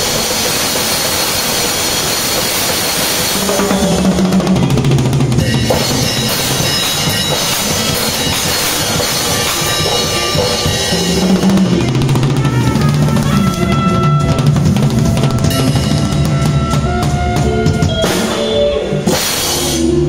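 Drum kit played with sticks: a dense wash of cymbals for the first few seconds, then a steady groove of kick, snare and cymbals, with low sustained notes from a bass line alongside.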